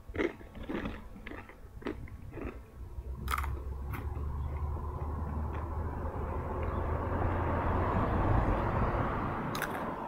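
Crunchy rolled and puffed corn snacks (Hot Cheetos and Takis) being bitten and chewed in a string of sharp crunches over the first three seconds, with two more crunches later on. From about three seconds in, a steady low rumble rises and takes over.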